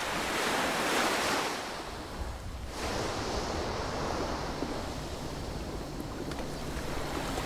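Small waves breaking and washing up a sandy beach. The surf swells and falls away over the first two seconds, then settles into a steady wash.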